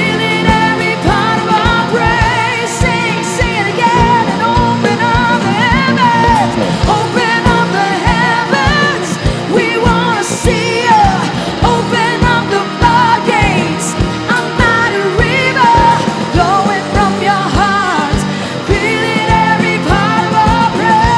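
Live worship band playing a pop-rock praise song with a steady kick-drum beat, and voices singing the melody.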